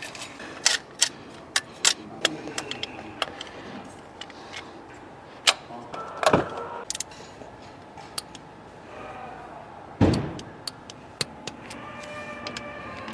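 Metal clicks and clinks of timing chains and engine parts being handled and fitted, with a couple of louder knocks. Music comes in near the end.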